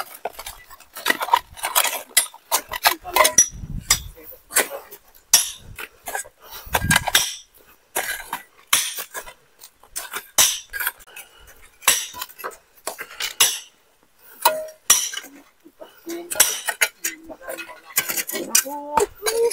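Steel digging bars and hoes striking stony soil and rock in quick irregular succession, a steady clatter of metallic clinks, with a couple of heavier thuds about four and seven seconds in.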